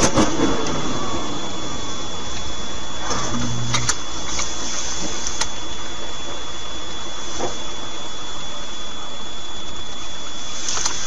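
Steady road and engine noise inside a moving car, with a faint steady high whine and a few faint clicks.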